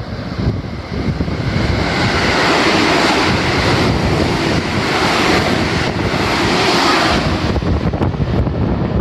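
JR 313 series electric train passing through a station without stopping: a broad rushing noise that builds from about a second in and falls away after about seven seconds, over heavy wind buffeting the microphone.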